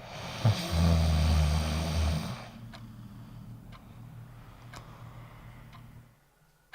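A person snoring loudly: one rough, low, rattling snore lasting about a second and a half, then a quieter breath out. Faint ticks come about once a second during the quieter part.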